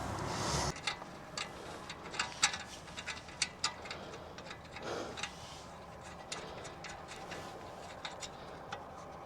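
Irregular light clicks and taps of hands and tools working on front suspension parts while the upper ball joint is fitted, a few a second at most.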